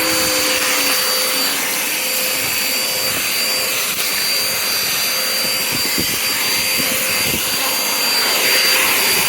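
Vacuum cleaner running steadily with a constant high-pitched motor whine and a few light clicks.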